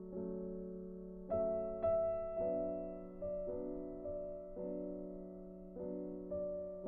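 Background music: slow, gentle piano chords, a new chord struck about once a second, each one dying away.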